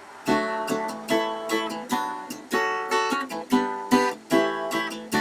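Theme music: acoustic guitar strummed in a brisk, even rhythm.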